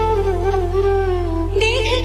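Background music: a slow, wavering melody over steady low chords, with a higher line coming in near the end.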